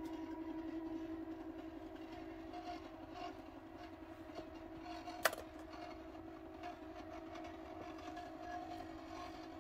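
Carriage-drive motors of a Grace quilting frame's automation system moving the Qnique 15 longarm back to the centre of the quilt, a steady motor hum. A single sharp click comes about five seconds in.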